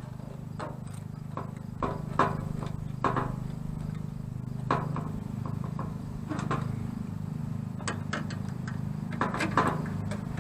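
Irregular clicks and light knocks from parts being handled and fitted onto a diesel heater, over a steady low hum.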